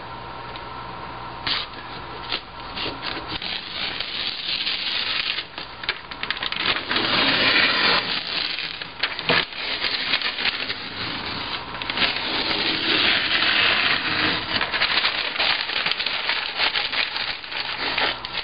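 Newspaper masking being torn and peeled off the glass of a wooden insect drawer: paper crinkling and ripping in long bursts, with scattered small clicks and scrapes.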